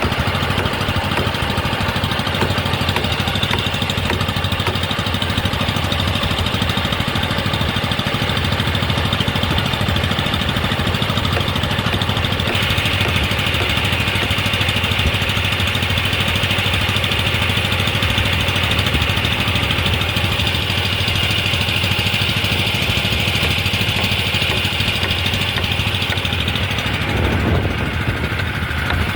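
An engine running steadily at an even speed, with a brief change in its sound near the end.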